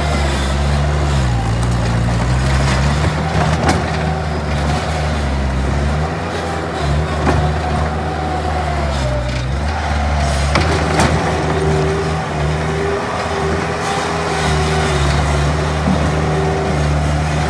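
Bobcat T180 compact track loader's diesel engine running under changing load, its pitch dipping and rising several times as the machine is worked, with a few sharp knocks.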